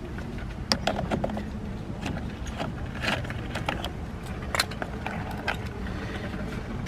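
Irregular light metallic clicks and taps from a socket wrench and extension being worked at a steering wheel hub, over a steady low rumble.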